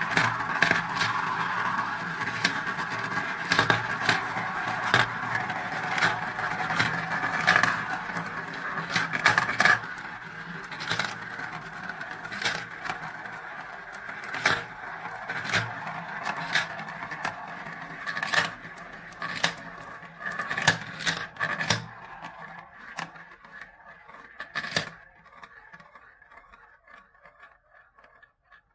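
Glass marbles rolling around the plastic funnel bowls of a marble run: a steady rolling sound with frequent clicks as marbles knock together and drop through the tubes. The rolling thins out after about twenty seconds and dies away to a few last clicks near the end.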